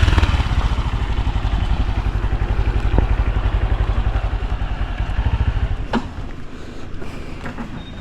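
A vehicle engine running with a low, pulsing beat, loudest at the start and fading away over about six seconds, as if driving off. A couple of sharp clicks sound along the way.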